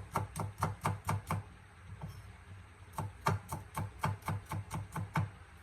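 Kitchen knife chopping garlic cloves on a cutting board: quick, even knocks about five a second, with a pause of about a second and a half midway.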